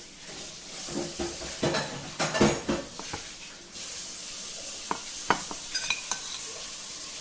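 Hands filling and rolling grape leaves on a plate: soft handling knocks and a few short clinks of a utensil against the plate, over a steady hiss.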